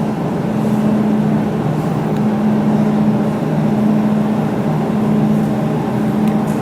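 Laser jewelry welding machine running with a steady, even hum, its low tone holding unchanged throughout.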